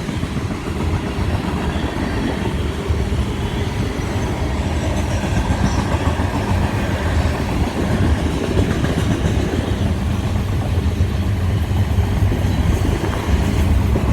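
Freight train rolling past close by: a steady heavy rumble of wheels on rail, with a continuous clatter of the wheels over the track.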